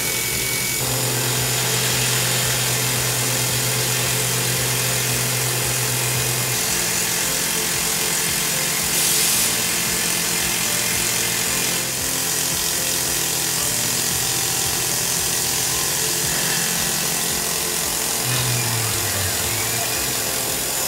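Tormach PCNC 1100 mill face-milling an aluminium block: the spindle and cutter run steadily under a hiss of mist coolant spray.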